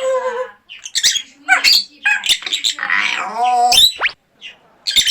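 Pet parrot making a run of wavering, sob-like "woo woo" calls, broken up by sharp squawky clicks and a short rising squeak near the end.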